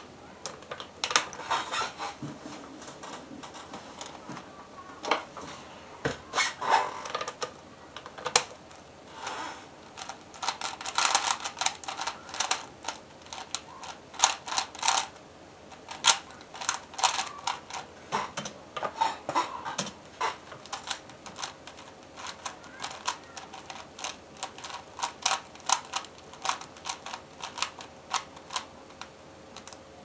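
A 3x3 Rubik's Cube being turned very fast by hand: its plastic layers click and clack in rapid flurries, with short pauses between runs of turns.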